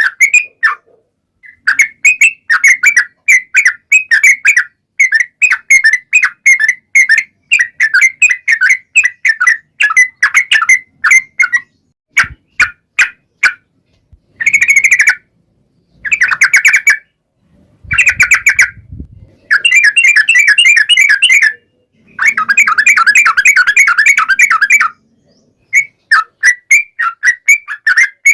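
Yellow-vented bulbul (trucukan) singing: long, rapid runs of bubbly chirping notes in bursts of a few seconds, broken by short pauses, with a few sharp clicks a little before the middle.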